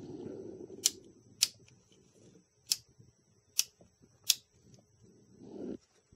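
Light, sharp clicks about once a second, with soft rustling, from fingers handling the plastic case and switch circuit board of an opened analog multimeter.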